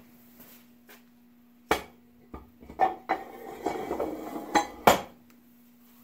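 Metal clinks and knocks as 6-71 blower rotors are set down into the aluminium blower case, touching the case and each other. A handful of sharp knocks come in the second half, the loudest one about five seconds in.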